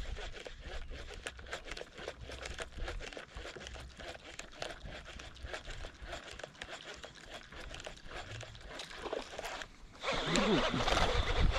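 Fishing reel clicking rapidly as line is worked, with a louder rush of noise starting about ten seconds in.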